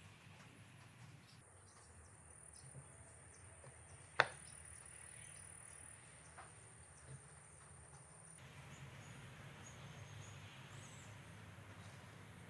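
Faint handling of wood on a table: a single sharp knock about four seconds in and a couple of faint taps, over low hum and a thin steady high whine.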